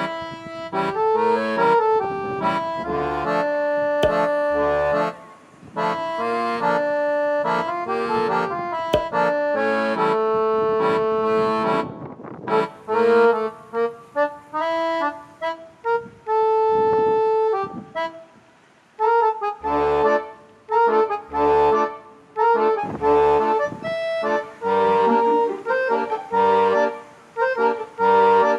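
Background music: an accordion-led tune with a light beat, pausing briefly twice.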